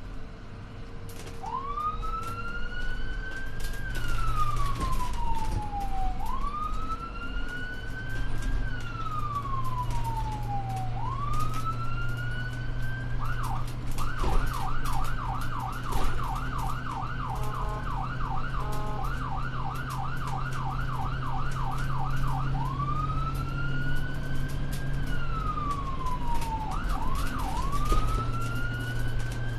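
Electronic emergency-vehicle siren in a slow wail, each sweep rising for a couple of seconds and falling back. About a third of the way in it switches to a rapid yelp for several seconds, then returns to the wail with a brief double yelp near the end. A steady low hum runs underneath.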